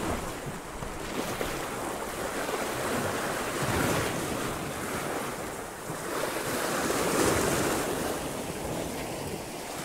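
Sea waves washing in and breaking against shoreline rocks, swelling louder about four seconds in and again about seven seconds in.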